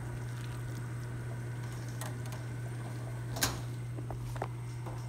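A steady low hum with a few light clicks; the sharpest click comes about three and a half seconds in.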